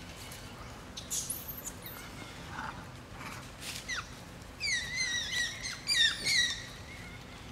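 An infant macaque squealing: a quick run of loud, high, wavering calls about two-thirds of the way in, each sliding down in pitch.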